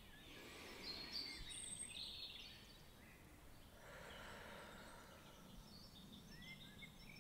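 Faint nature background: scattered high bird chirps over a soft hiss, with the hiss swelling briefly about four seconds in.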